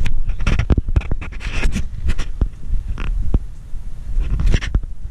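Handling noise of a handheld camera being carried: rubbing and scraping on the microphone, with a rumble and irregular knocks and bumps.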